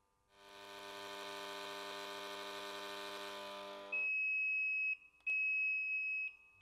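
Induction bearing heater humming at mains frequency as it heats a ball bearing, starting about half a second in. The hum stops about four seconds in and the heater gives two long, high beeps, its signal that the bearing has reached its set temperature of 110 °C.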